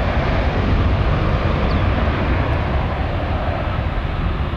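Jet airliner engines running, a steady loud roar heaviest in the low rumble, easing slightly toward the end.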